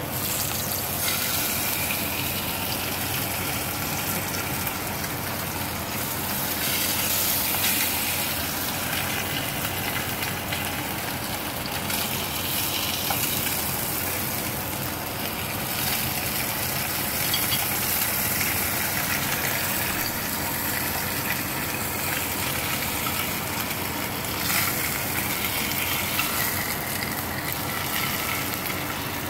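Threadfin fillets sizzling in hot oil in a nonstick frying pan. The sizzle sets in suddenly as the fish goes into the pan and keeps on steadily, swelling louder now and then.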